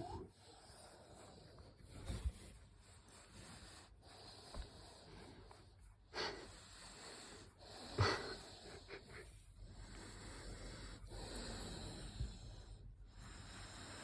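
Sleeping pit bull snoring and wheezing, slow noisy breaths every few seconds.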